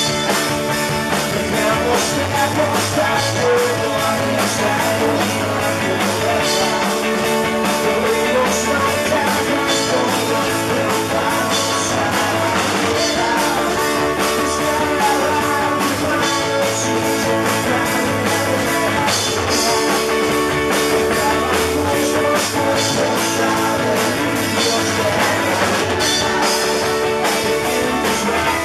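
Live rock band playing at full volume: electric guitar over a drum kit keeping a steady beat.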